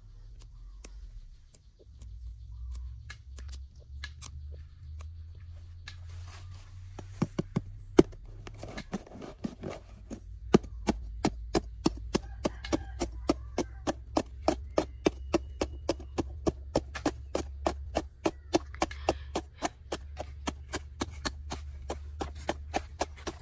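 A rapid, even series of sharp knocks, about three a second, starting about seven seconds in after a few scattered clicks, over a steady low rumble.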